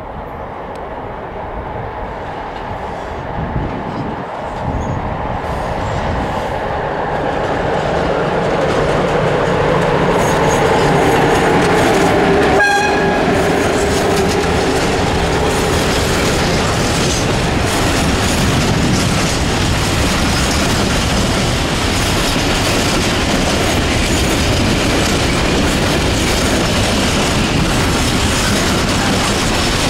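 Freight train of container flat wagons approaching and passing close by on an electrified line, growing louder over the first ten seconds, then a steady run of wagons with wheels clattering over the rails.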